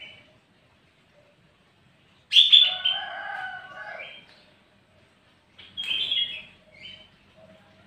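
Sooty-headed bulbul singing: a loud phrase of several chattering notes about two seconds in, lasting nearly two seconds, then a shorter phrase with a brief note about six seconds in.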